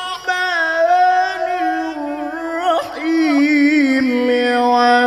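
A male Quran reciter's voice holding long melodic notes in the tajwid style, the pitch stepping down several times, with a wavering ornamented run about three seconds in.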